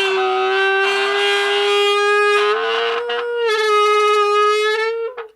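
Soda can blown on so it gives a loud, buzzing horn-like tone with small steps in pitch, meant to imitate a Lamborghini V10 engine. The tone stops just before the end.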